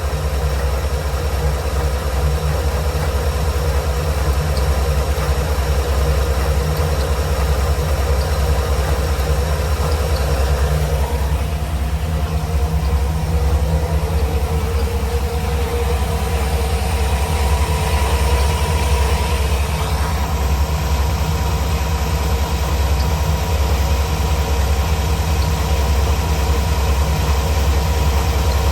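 1989 Chevrolet Caprice engine idling steadily, running on its newly installed alternator while the charging is checked.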